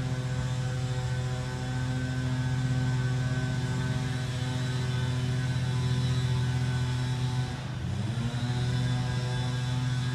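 Lawn mower engine running steadily at a constant pitch, briefly dipping in pitch and loudness about three-quarters of the way through before picking back up.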